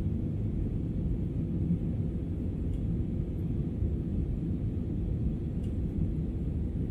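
Steady low cabin rumble of an Airbus A320-family airliner climbing out after takeoff: jet engines and airflow heard from inside the cabin at a window seat.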